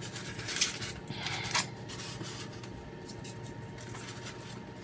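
Craft-foam pumpkins handled on a marble countertop: a few brief scratchy rubs in the first second and a half, then fainter handling noise.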